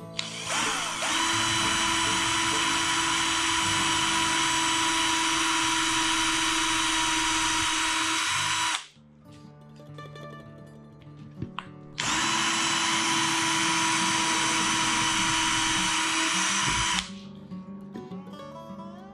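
Cordless drill running at a steady speed, drilling holes in a pick-and-place machine's axis block. It runs in two long stretches, about eight seconds and then five seconds, with a short pause between, and each stretch cuts off sharply.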